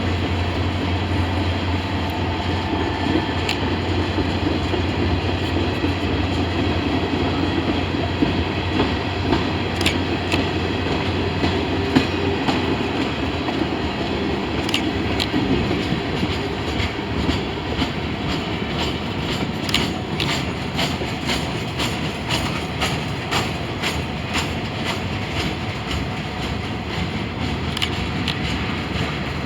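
Freight train passing: a low, steady diesel locomotive rumble fades over the first half, then the cars roll by with rapid clickety-clack of wheels over rail joints.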